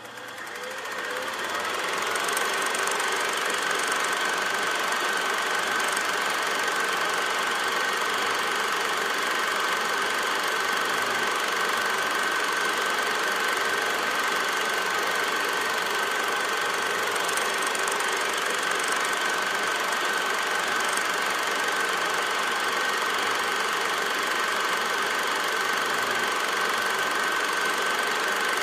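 A machine running steadily, a continuous mechanical whirr and rattle with a constant thin whine on top, fading in over the first couple of seconds and then holding even.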